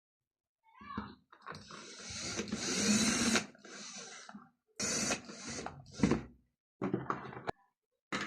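Wires being pushed into an electrical junction box and its cover fitted: rustling and scraping of wire and plastic, with knocks and clicks, in several separate passages, one ending abruptly near the end.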